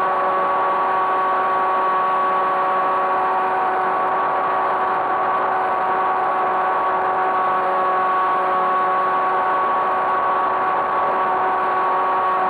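RC model airplane's motor and propeller heard from the onboard camera, a steady whine at constant throttle with a stack of even tones over a rush of air.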